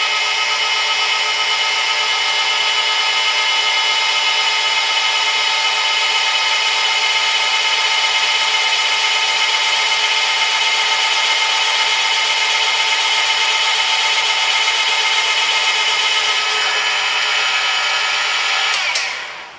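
The balancing machine's drill head running steadily with a 3/4-inch bit, drilling a correction hole in a Ford 302 crankshaft to remove weight and bring its imbalance down toward tolerance. The drill motor whines steadily, then shuts off near the end.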